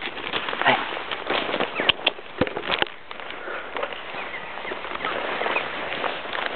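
A herd of cattle walking up close through grass, with rustling and scattered sharp knocks of the camera being handled, the loudest about two seconds in.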